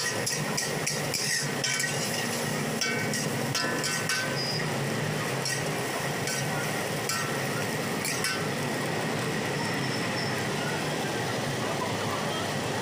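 Metal spatula clanging and scraping against a large steel wok as egg fried rice is stirred and tossed: quick ringing clinks for the first few seconds, then sparser ones until about eight seconds in, over a steady rushing background.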